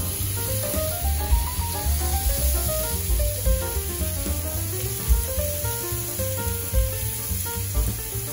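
Background music with a heavy bass beat and a stepping melody, over the steady hiss of thin slices of meat sizzling on a hot steel teppan griddle.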